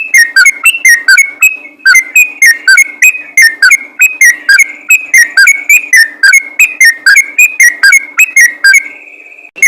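Yellow-vented bulbul (trucukan) singing a fast, continuous run of loud whistled notes, about four a second, each note falling in pitch. There is a brief pause about two seconds in, and the singing stops near the end.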